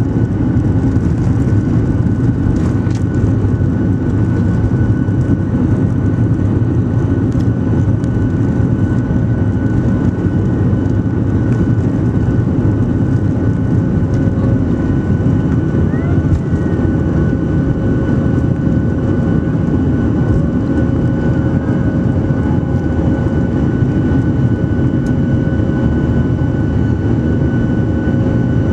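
Cabin noise of a Boeing 737-700's CFM56-7B jet engines at takeoff thrust, heard inside the cabin over the wing through the takeoff roll and lift-off: a steady heavy rumble with a steady high fan whine on top.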